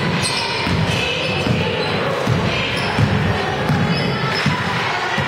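Basketball dribbled on a hardwood gym floor, a regular run of bounces about two a second, with spectators' chatter behind.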